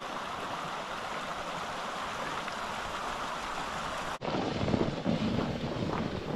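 Steady rush of an open mountain stream flowing between snow-covered rocks. About four seconds in it cuts off abruptly to rougher, rumbling wind noise on the microphone.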